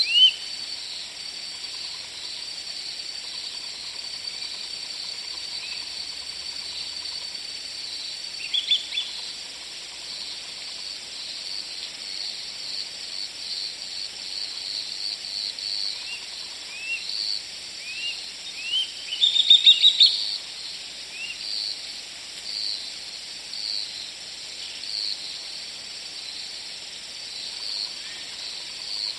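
Forest ambience: a steady high drone of insects with a chirping pulse about once a second, over which birds give short rising chirps. The loudest moment is a quick run of several chirps about two-thirds of the way through.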